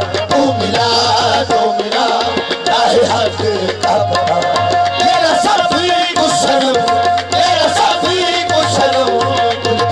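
Qawwali music: harmoniums holding and moving a melody over a steady tabla beat.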